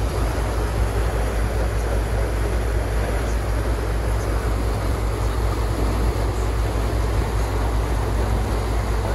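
Steady low rumble of a passenger boat's engine under way, with a haze of water and wind noise over it.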